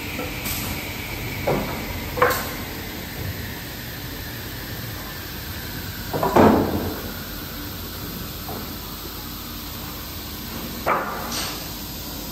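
Wooden workpieces knocking on the steel feed table of a CNC cut-off saw: a few separate knocks, the loudest about six seconds in, over a steady low machine hum.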